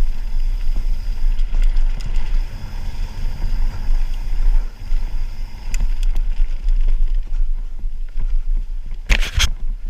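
Mountain bike rolling fast down a rocky trail: a steady low rumble of tyres and frame over rough ground, with wind buffeting the microphone, light rattles and one short loud clatter about nine seconds in.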